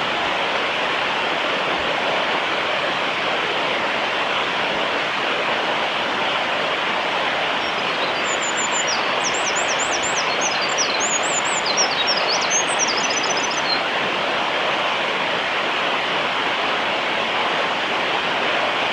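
A Eurasian wren sings one burst of its song about eight seconds in: very high, rapid trills and quick notes lasting about six seconds. Underneath is a steady, loud rushing of running water.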